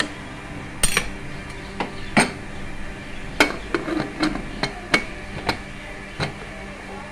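Aluminium pressure cooker and steel spoon: a series of sharp metallic clinks and knocks, irregularly spaced, as the pumpkin is stirred and the cooker's lid is put on and closed, with a quick cluster of knocks near the middle.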